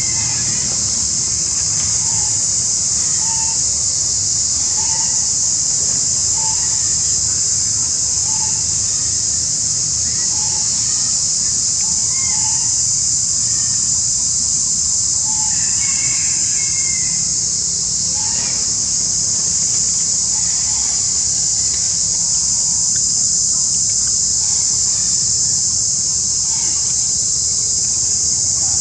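Insects buzzing in a steady high-pitched drone, with a bird giving short calls about once every second or so over it.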